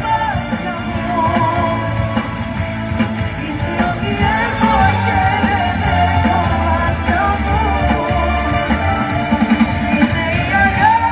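A live band playing a Greek pop song through the concert PA, picked up from among the crowd, with a wavering melody line over a steady bass and beat.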